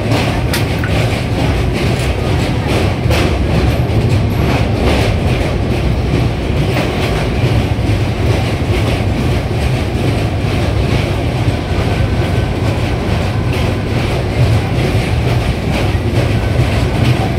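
Train running across a steel truss bridge, heard from inside the coach: a loud, steady rumble with the clickety-clack of the wheels over the rail joints, the clicks most noticeable in the first few seconds.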